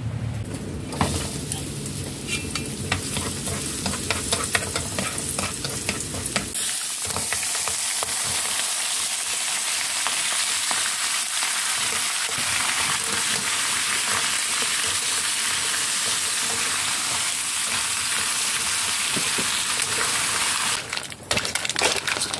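Razor clams stir-frying in hot oil in a wok, sizzling loudly, with the clicks of stirring against the metal. A steady hiss cuts in suddenly about six seconds in and falls away near the end, leaving stirring clicks.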